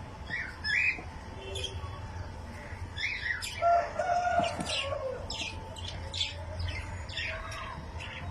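Cockatiels chirping: a run of short, high calls, several rising in pitch, coming thicker from about three seconds in.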